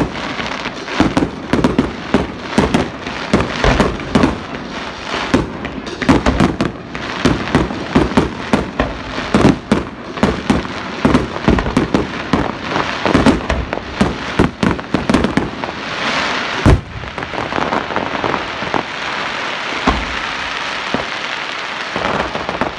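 Fireworks display: a rapid string of bangs and pops, with one big bang about three-quarters of the way through. After it comes a steady crackling hiss.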